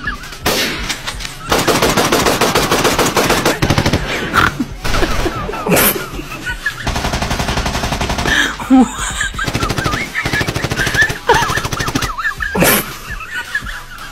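Rapid-fire bursts like machine-gun fire in two long strings, with single loud cracks in between.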